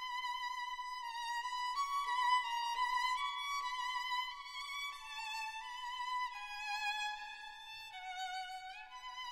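Background music: a solo violin playing a slow melody with vibrato, moving to a new note about every second.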